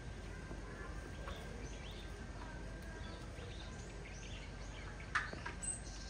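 Outdoor ambience with scattered faint bird chirps, and a single sharp knock about five seconds in.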